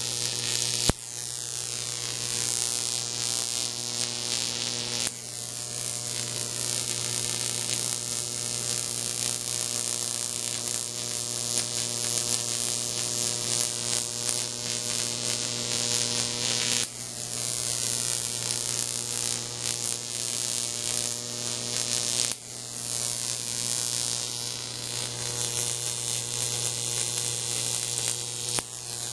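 A 12,000-volt neon sign transformer running under load, with a steady mains hum beneath the loud hissing buzz of a high-voltage arc drawn between two wire electrodes. The hiss changes abruptly about four times, with a sharp click about a second in.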